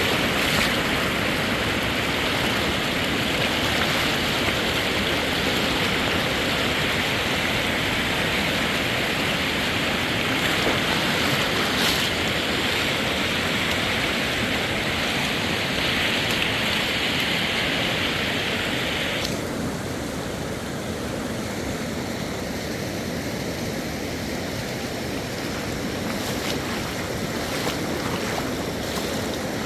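Fast-flowing mountain river rushing steadily. About two-thirds of the way through it abruptly turns duller, losing its bright hiss.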